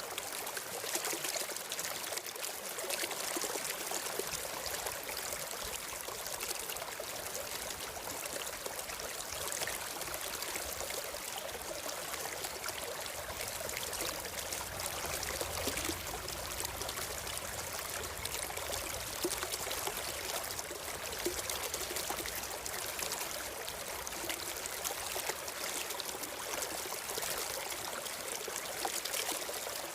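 A stream of water flowing and trickling steadily.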